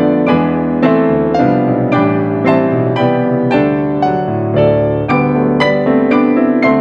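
Acoustic piano playing, with chords and notes struck about twice a second, each ringing on and fading.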